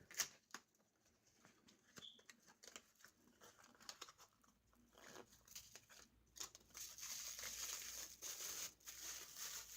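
Faint rustling and crinkling of packaging being handled and torn open, with scattered small clicks, turning into steadier crinkling about six and a half seconds in.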